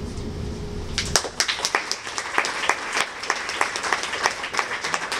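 Audience applauding, with separate hand claps, starting about a second in.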